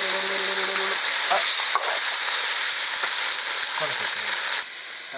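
Loud sizzling and hissing as water is poured from a ladle into a hot pan of frying chicken curry, the water boiling and spitting on contact with the oil. The sizzle stops abruptly near the end.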